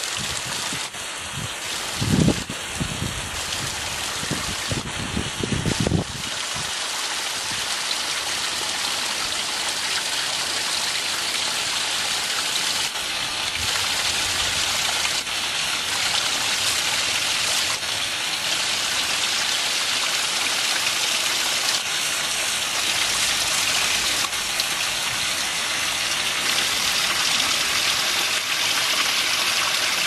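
Water dripping and trickling down a seeping cliff face in many thin streams and drops, a steady splashing hiss like rain. A few low thuds sound in the first six seconds.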